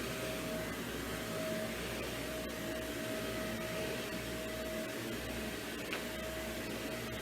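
Electric vacuum cleaner running steadily: a rushing motor noise with a steady whine, its low end swelling and fading every second or so.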